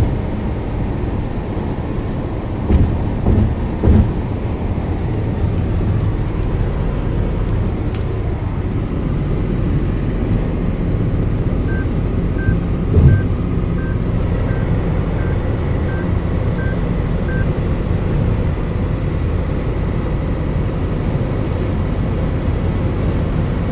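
Steady road and engine noise inside a car's cabin at highway speed, with a few dull thumps about three seconds in and again near the middle. Partway through, a run of about nine short, evenly spaced beeps, a little over one a second: the car's over-speed warning chime.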